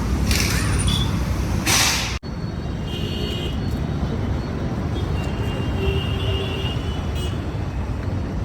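Road vehicle noise: a steady low rumble with two short hissing bursts in the first two seconds. After a sudden break it goes on as steady rumble with a few faint high tones.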